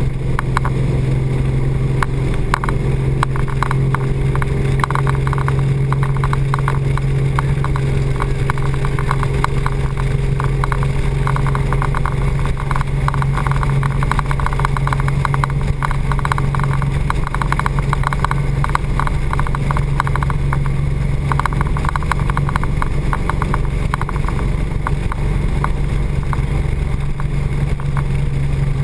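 Speedboat engine running steadily at speed, a constant low drone that holds one pitch, with water rushing under the hull and a rapid patter of small slaps and ticks over it.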